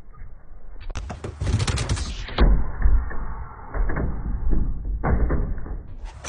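A dog scrambling out through an SUV's side window and across its hood. Irregular thuds and knocks of its paws on the metal body sound over a low rumble on the microphone.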